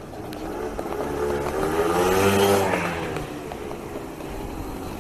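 A motor vehicle engine rising in pitch and loudness to a peak a little past the middle, then falling away and running on at a lower level.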